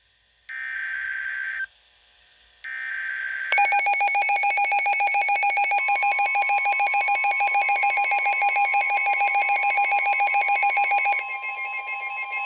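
Emergency Alert System tones: two short bursts of screechy digital header data about a second apart, then the EAS attention signal, a loud steady two-tone alarm that starts about three and a half seconds in and changes character near the end.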